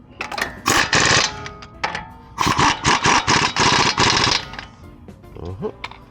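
Power impact tool running in two rapid hammering bursts, a short one about a second in and a longer one from about two and a half to four and a half seconds, driving fasteners on a truck's front brake assembly. Background music plays underneath.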